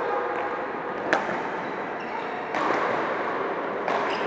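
Badminton rackets hitting shuttlecocks in a large sports hall: one sharp crack about a second in, then two duller hits near three and four seconds, over steady hall noise.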